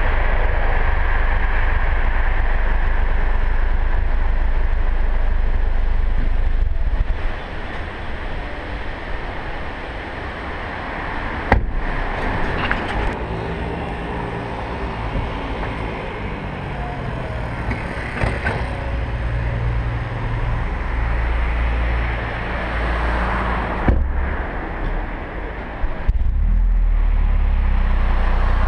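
Audi TT-S turbocharged four-cylinder exhaust rumbling as the car rolls slowly, heard from outside the car. After about seven seconds it drops to a quieter steady idle, with a few sharp knocks. Near the end a louder low rumble comes back.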